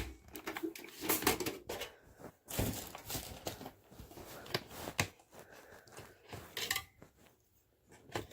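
Irregular clicks, knocks and rustling from hands handling a desktop PC's case and parts, with a brief pause near the end.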